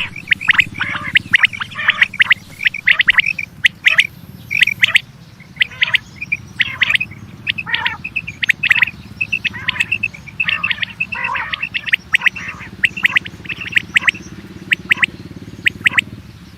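Quail calling: a busy, irregular run of short, high chirping notes, some in quick clusters. A steady low hum runs underneath.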